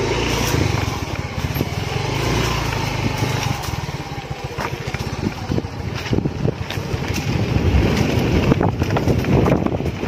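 Motorcycle engine running while the bike rides over a rough dirt trail, with knocks and rattles from the bumps that come more often in the second half.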